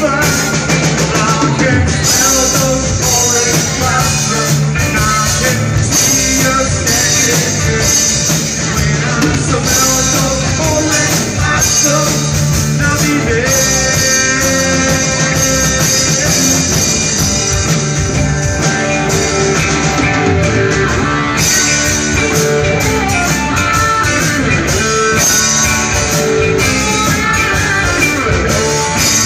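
Live rock band playing: acoustic and electric guitars over a drum kit, steady and loud throughout.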